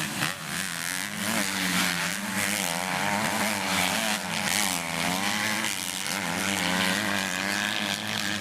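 Motocross bike engines revving and easing off over and over, their pitch wavering up and down as they race around the track.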